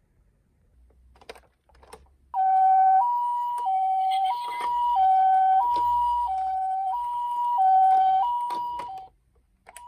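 Japanese ambulance two-tone "pee-poh" siren, switching between a lower and a higher note about every two-thirds of a second. It starts about two seconds in, after a few faint clicks, and stops shortly before the end.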